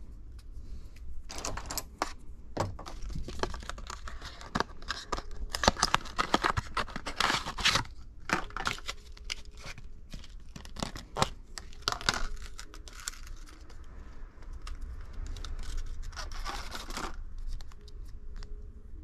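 Adhesive tape being peeled and crinkled by hand: a run of tearing rasps and sharp crackles, busiest in the middle, with a last burst near the end.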